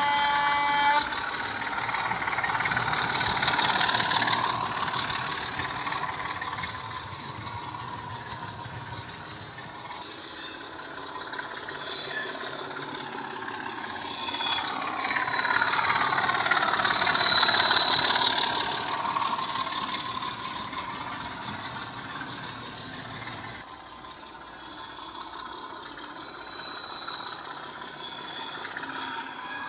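DCC sound decoder in a Bachmann Class 25 model locomotive, playing SWD's U-Drive recording of a Class 25 diesel engine through a double iPhone mini speaker. The engine note rises early on and falls away again past the middle as the model runs. A short pitched tone sounds for about a second right at the start.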